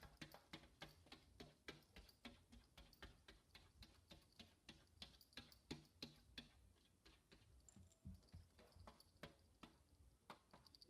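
Faint, quick, regular clicking, about four clicks a second, that thins out over the last few seconds.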